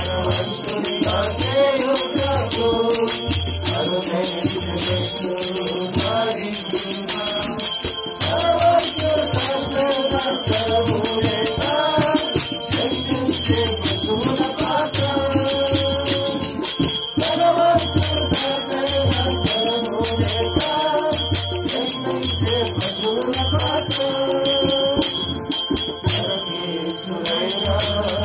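Men singing a devotional gospel song together over a microphone, to a steady beat on a dholak hand drum and continuous jingling hand percussion. The jingling and the loudness drop briefly near the end.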